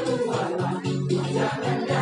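Music playing with a group of voices singing over the accompaniment.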